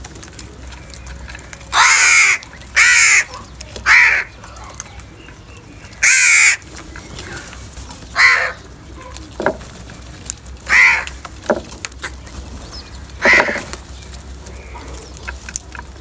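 House crows cawing: about seven loud caws, three in quick succession near the start and the rest a few seconds apart, over faint small clicks.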